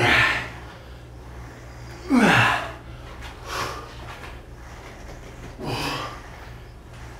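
A man's heavy breathing from exertion during resistance-band training: about four forceful breaths a second or two apart. The loudest, about two seconds in, is a voiced grunt falling in pitch. A steady low hum runs underneath.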